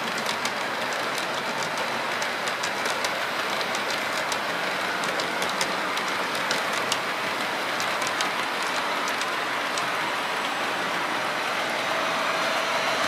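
OO gauge model train running along the layout's track: a steady running rush with many sharp, irregular clicks from the wheels over the rails. A faint steady hum sets in near the end.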